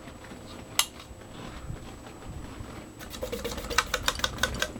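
A single sharp click about a second in as the Canarm Mystic ceiling fan's controls are worked to change it to reverse. It is followed near the end by a quick run of light clicking and rattling over a faint hum.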